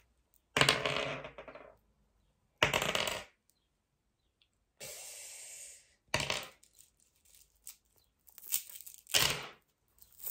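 Small hard objects clinking and clattering in several short bursts, broken by silent gaps.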